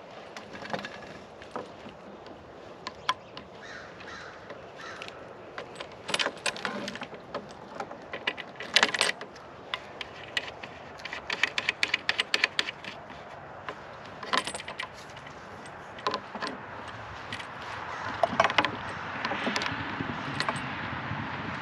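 Alex Loop antenna parts being handled and fitted together: irregular clinks and rattles in scattered clusters.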